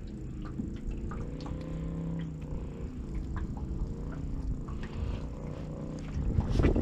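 A boat engine idling steadily, its low hum wavering slightly in pitch, with scattered faint clicks and knocks.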